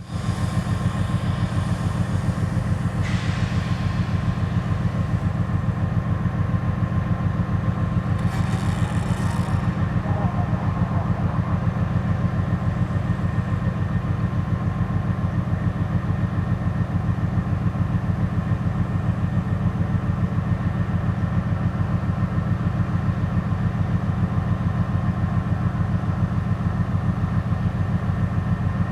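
2TE10M diesel locomotive's 10D100 two-stroke opposed-piston diesel engine running steadily with a fast, even low throb. Brief hissing comes in about three seconds in and again around eight to ten seconds.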